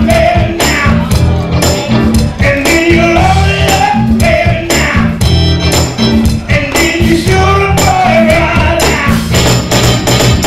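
Upbeat Motown-style soul music with a driving beat, tambourine on the beat, a pulsing bass line and a gliding melody line over it.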